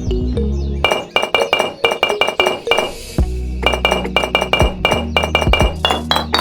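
Background music: quick, evenly spaced bright clinking notes over a steady bass line. The bass drops out from about one to three seconds in, and near the end the notes climb in pitch.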